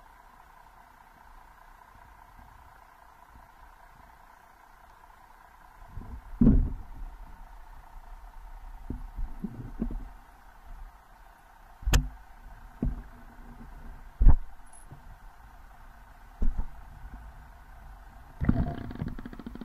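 Underwater action camera in its waterproof housing, recording a faint steady hum. From about six seconds in come irregular hollow knocks and thumps, five of them loud, as a flatfish bumps against the camera.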